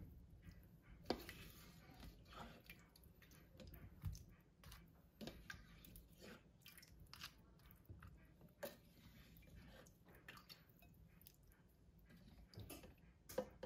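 Faint, irregular taps and wet squishes of a slotted spoon scooping cooked vegetables out of a slow cooker's crock, juice running back through the slots.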